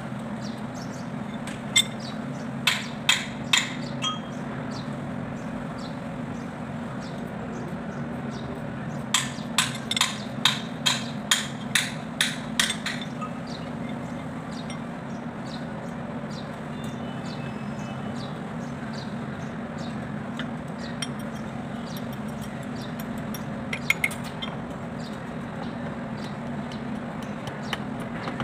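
Hammer striking metal: a run of about five sharp, ringing taps a couple of seconds in, then a quicker run of about nine taps, about two a second, a few seconds later. A steady low hum runs underneath.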